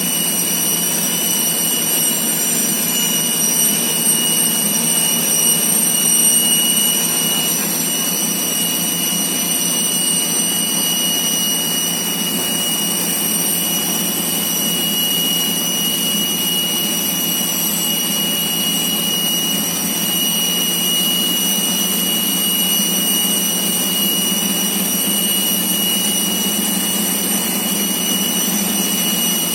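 Aircraft jet turbine running steadily: a loud, even rush with several constant high-pitched whining tones.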